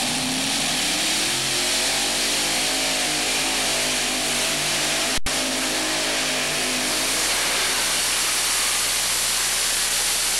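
Multi-engine modified pulling tractor running its engines hard under load: a loud, continuous engine roar whose pitch wavers up and down. There is a momentary break in the sound about halfway through.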